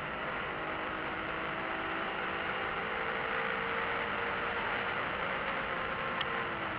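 BMW E46 M3's straight-six engine and tyre and road noise, heard from inside the cabin through a dashcam microphone while driving at speed. The sound is a steady, even rush, and the engine note drifts slightly up and down.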